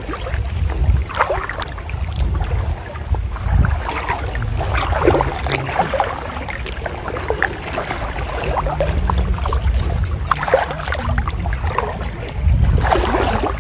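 Floodwater splashing and sloshing in irregular bursts as someone moves through flooded brush, over a steady low wind rumble on the microphone.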